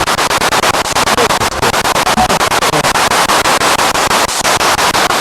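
Spirit box sweeping through radio stations: loud static hiss chopped into rapid, even pulses many times a second, with brief snatches of radio sound caught between the gaps.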